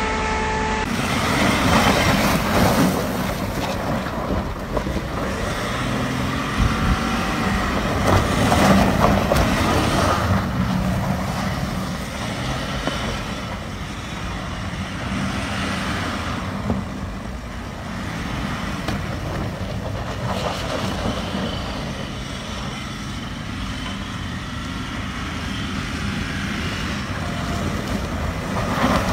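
BMW X6 M50d's straight-six diesel engine running under throttle while the SUV slides in circles on snow, its tyres spinning through the snow, with wind noise on the microphone.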